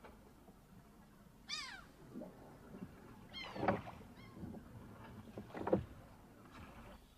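An animal calling: several short, high cries that fall in pitch, spread across the pause, with two brief knocks about midway and near the end.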